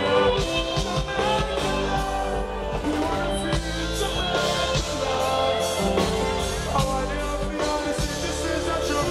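Live reggae band music with a singing voice over it.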